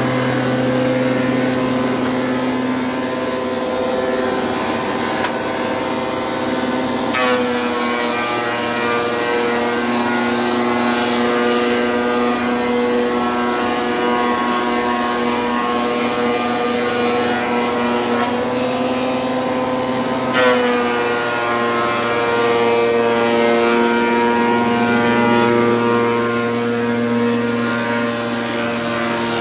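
Single spindle moulder running with a steady hum. About seven seconds in, and again about twenty seconds in, there is a click and the pitch dips and settles, as the cutter takes load from the wood being fed through.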